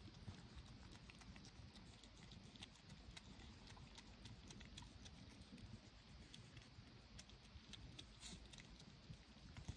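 Near silence: faint scattered ticks and light rustling over a low rumble.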